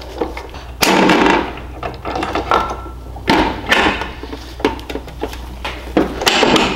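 Steel gear set and shaft of a Polaris transmission clunking and rattling against each other and the aluminium case as they are fitted in by hand: a handful of separate knocks and clinks, the loudest about a second in.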